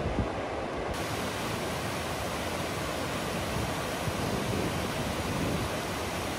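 Mountain stream rushing over boulders: a steady, even rush of white water. About a second in, it turns brighter, with more hiss.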